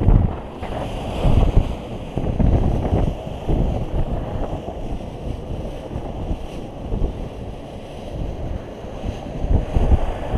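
Wind rushing over the microphone of a paraglider pilot's camera in flight: a low buffeting rumble that swells and eases in gusts, loudest at the start and again near the end.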